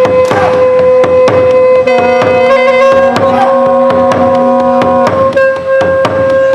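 Music with drum strokes and a steady held note, while a melody changes above it.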